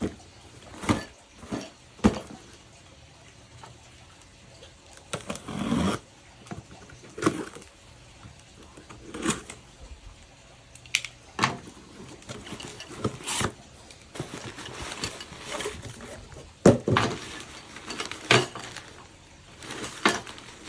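A cardboard shipping box being handled and opened: irregular knocks and rustles of cardboard, a longer scrape a few seconds in as the packing tape is slit with a utility knife, and a drawstring bag rustling near the end.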